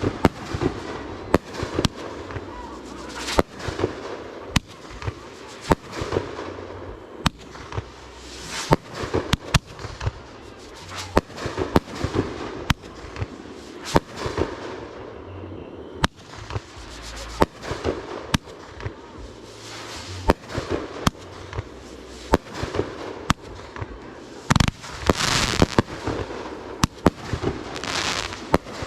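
Fireworks going off: a steady series of sharp bangs, one to three a second, with a dense stretch of crackling about three-quarters of the way through.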